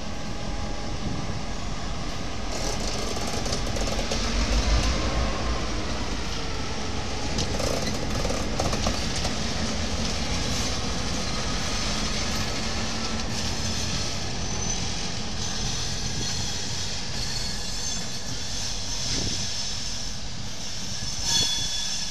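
Two Clyde-EMD diesel locomotives, T class T377 and B class B80, running light at low speed: the diesel engines run steadily, loudest about four to five seconds in as they pass close. Thin, high-pitched wheel-flange squeal joins in during the second half as they move off over the workshop track.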